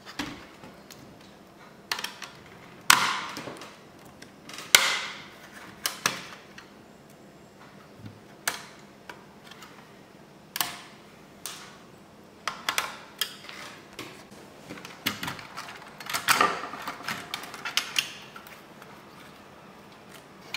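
Irregular plastic clicks, knocks and short scrapes from an HP Pavilion dv6000 laptop's plastic case being handled and taken apart. The loudest knocks come about three and five seconds in, with a busy run of clicks in the last few seconds.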